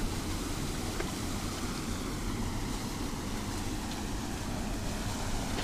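Steady rush of river water spilling over a small cascade, with wind rumbling on the microphone.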